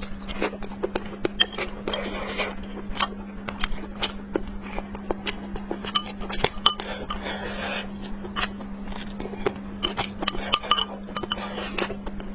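Utensils clinking and tapping against dishes during a meal, many short clicks at an irregular pace with a few brief scraping or mouth-noise patches. A steady low hum runs underneath.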